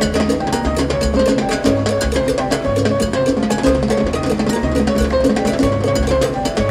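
Live salsa band playing at full volume, with a driving percussion rhythm on congas and a stepping bass line under the melody.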